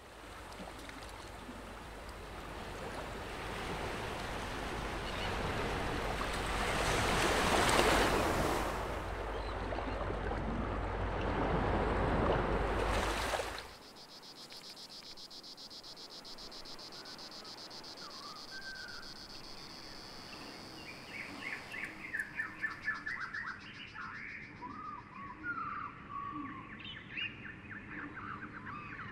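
Nature soundscape: a rushing, surf-like noise swells, peaks twice and cuts off abruptly about halfway through. After it comes a steady high insect drone, with birds chirping and calling over it from about two-thirds of the way in.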